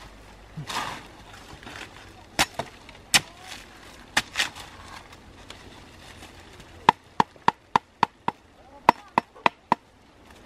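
Machete blade chopping and knocking against a bamboo pole to knock a black ant nest loose onto a woven bamboo tray. A few scattered knocks come first, then about halfway through a quick run of about a dozen sharp, ringing taps, roughly four a second.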